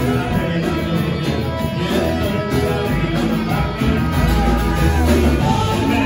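Music with singing over a steady bass line; the bass grows heavier about four seconds in.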